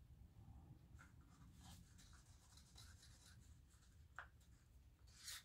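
Faint scraping and tapping of a wooden craft stick against a small plastic cup as acrylic paint is scraped out. There are a few isolated strokes, then a louder run of scrapes near the end.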